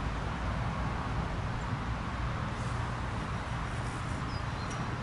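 Wind buffeting the microphone, a steady low rumble with hiss over open water, with a couple of faint high bird chirps near the end.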